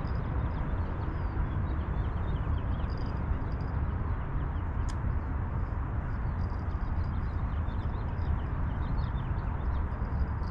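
Wind buffeting an outdoor microphone: a steady, fluttering low rumble, with faint high chirps over it and one sharp click about five seconds in.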